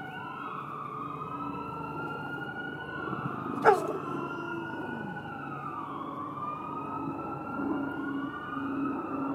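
Several emergency-vehicle sirens wailing at once, their tones rising and falling and overlapping. About four seconds in comes a single short, loud sound that drops sharply in pitch.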